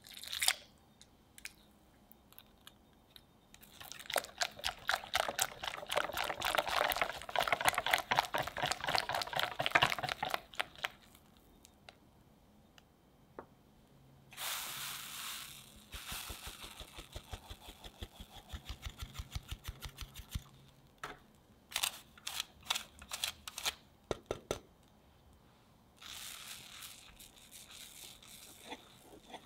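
Mixing cake batter in a glass bowl: a wire-and-silicone whisk beats the yolk batter against the glass in fast clicking strokes for several seconds. About halfway through, flour and cocoa are sifted through a mesh sieve, a short rush of noise followed by a run of quick, even taps. Near the end the whisk starts stirring into the dry flour.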